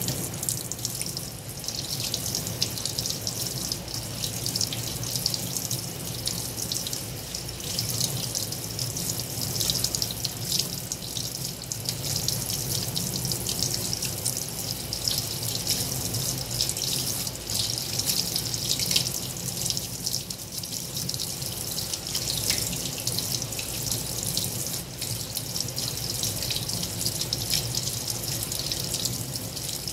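Spray from a pull-down sink faucet running steadily onto rubber-gloved hands and splashing into a stainless steel sink as something is rinsed under it, with a steady low hum underneath.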